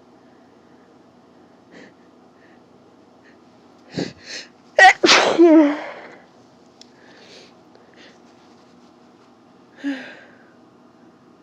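A person with a head cold sneezing once: two quick catching breaths about four seconds in, then one loud, sudden sneeze with a voiced trailing sound, and a shorter breath sound near the end.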